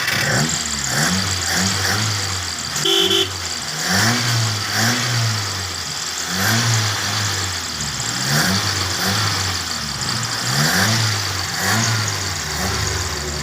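Nissan Sentra engine running unevenly after a hard start, its pitch rising and falling in a steady cycle about once a second. A short beep sounds about three seconds in.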